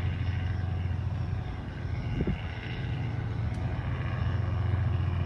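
Engine droning steadily with a deep low hum.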